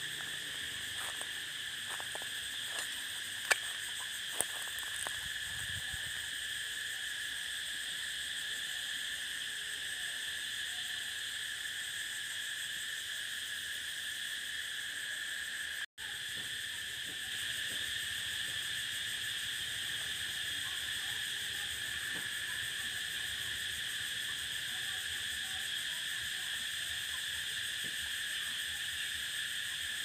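Cicadas buzzing in one steady, unbroken drone. A few sharp clicks come in the first few seconds, and the sound cuts out for an instant about halfway through.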